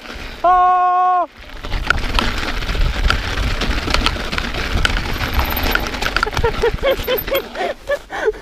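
A loud, steady electronic beep, held for about a second near the start. Then a fat bike riding over a packed-snow trail: tyres crunching and the bike rattling over bumps, with wind on the microphone.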